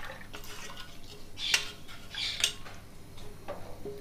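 A spoon clinking and scraping against metal cookware as besan batter is poured into a kadhai and scraped out of its bowl, with a few sharp taps, the two loudest about a second and a half and two and a half seconds in.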